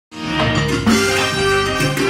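Live salsa orchestra playing, with trumpets, keyboard and drum kit, cutting in abruptly mid-song.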